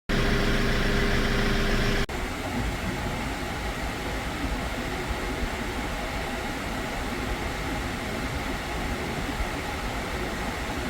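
Hyundai Porter II truck running with its air conditioning on, a steady mechanical hum and rush of air. A louder pitched hum in the first two seconds changes abruptly to the steadier, quieter running noise.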